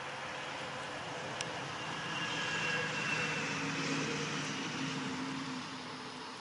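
A distant engine passing by, a steady hum that swells about two seconds in and fades toward the end, over a hiss of outdoor background noise, with one sharp click about a second and a half in.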